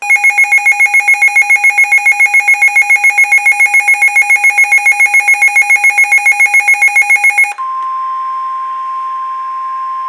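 Midland NOAA weather radio sounding its loud, rapid pulsing alert beep, about five beeps a second. About seven and a half seconds in it switches abruptly to the steady single-tone NOAA Weather Radio warning alarm tone, which signals a warning is about to be read.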